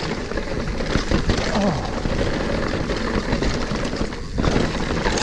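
Mountain bike riding over a dirt trail: rough, steady noise of wind on the microphone with tyres and bike rattling over roots and rocks, briefly easing about four seconds in.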